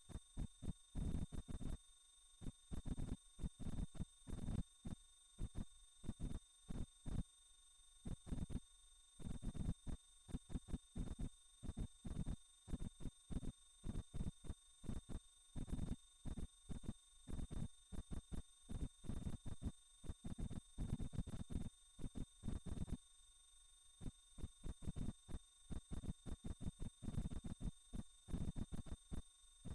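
A single steady, very high-pitched pure tone from a sound-healing frequency track, pulsing rapidly and evenly in loudness.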